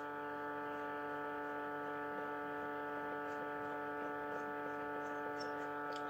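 Leningrad 010 Stereo radio receiver on the medium-wave band with no station coming in: its speaker gives a steady hum with a stack of overtones over faint hiss, the sound of interference rather than a broadcast.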